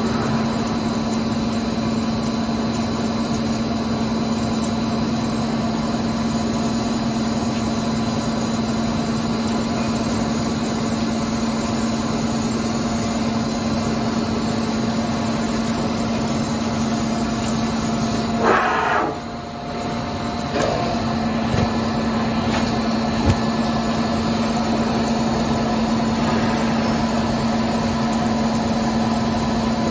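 CNC lathe running with a steady machine hum as its spindle turns a metal bar. About two-thirds of the way through, a short harsher burst comes, then the hum briefly drops out and picks up again.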